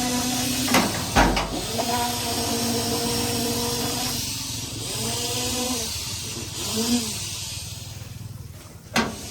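A small motor running with a steady whine, its pitch dipping and recovering twice as if briefly loaded, with a couple of sharp knocks about a second in and another near the end.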